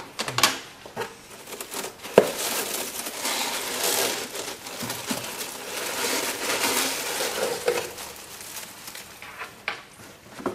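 Crinkling and rustling of brown honeycomb kraft-paper packing being pulled out of a cardboard box, with one sharp tap about two seconds in.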